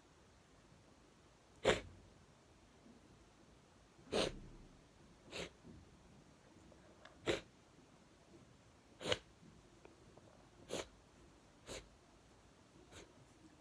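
A person sneezing again and again, about eight sneezes one to two seconds apart, the first the loudest and the last ones smaller. It is a sneezing fit set off by sniffing chhinkni sneezing powder while congested with a cold.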